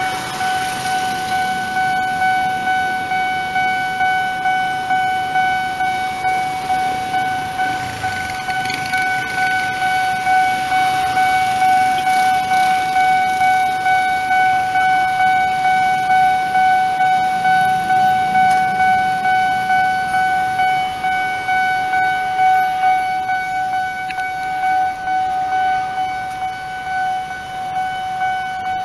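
Railway level crossing warning bell ringing continuously as an even, rapidly repeating electronic ding, the signal that a train is approaching and the barriers are down, over the idling of waiting motorbikes and cars.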